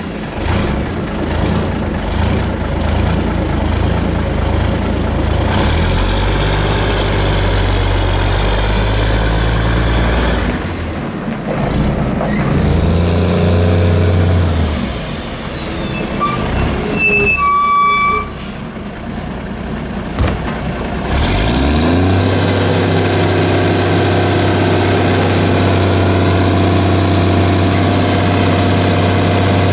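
Diesel engine of a 1982 American LaFrance CTC garbage truck running as the truck pulls away and changes speed, with a few seconds of high squealing about halfway through. Near the end the engine runs steadily at a constant speed.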